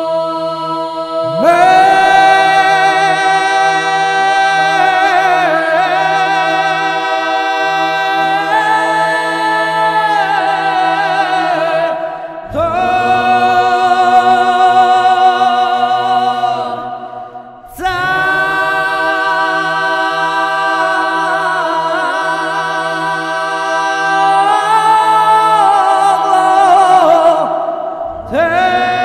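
Unaccompanied church chant: a slow sung melody in long held notes over a steady drone note, pausing briefly twice before starting a new phrase.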